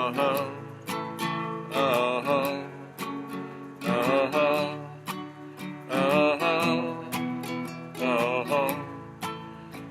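Instrumental break in a folk song: strummed acoustic guitar under a wavering melody line that comes in short phrases about every two seconds.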